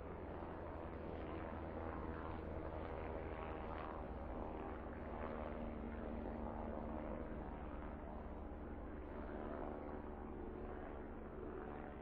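Formation of helicopters flying by overhead: a steady rotor and engine drone with a deep low rumble.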